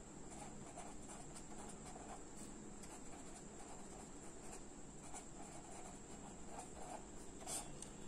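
Red marker pen writing on a paper notebook page: faint scratching of letter strokes, with a slightly louder stroke near the end.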